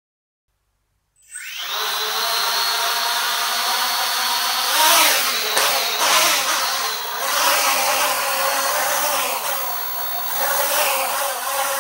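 A small home-built quadcopter's electric motors and propellers start up suddenly about a second in, then keep whirring, with the pitch rising and falling several times as the throttle changes.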